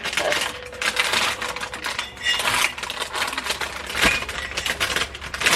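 Clattering and rustling of vegetables and grocery bags being handled, with many small clicks and knocks and a sharper knock about four seconds in.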